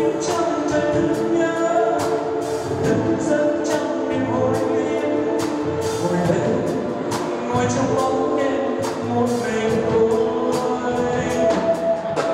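Vietnamese spring song (nhạc xuân) with singing over a band and a steady beat.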